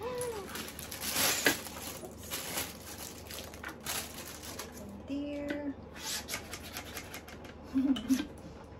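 Clear plastic wrapping crinkling and rustling while a hand pump for vacuum storage bags is unwrapped, with irregular clicks and rubs. A few short low hums come in near the start, about five seconds in and near the end.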